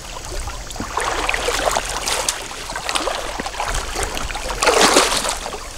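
Hooked common carp thrashing at the surface beside the landing net: repeated splashing, loudest near the end.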